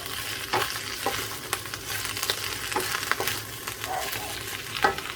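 Cabbage and spring onion sizzling as they are sautéed in olive oil in a pan, stirred with irregular clicks and scrapes of the utensil against the pan. The sharpest knock comes near the end.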